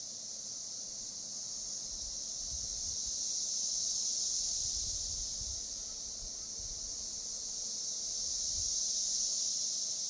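Chorus of Magicicada cassini, 17-year periodical cicadas, a continuous high-pitched buzz that swells and fades in waves about five seconds long, peaking about four seconds in and again near the end. The swells are sound cycles, made by many males calling together on a roughly five-second rhythm.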